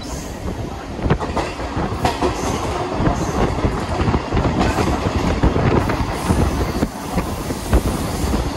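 Mumbai suburban local train running, with the steady rumble of its wheels and irregular clicks as they pass over rail joints. Brief high wheel squeals come now and then.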